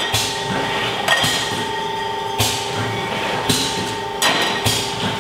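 Glass beer bottles knocking and clinking as they are handled and set down during hand labeling and packing, about five sharp knocks roughly a second apart, over a steady machine hum.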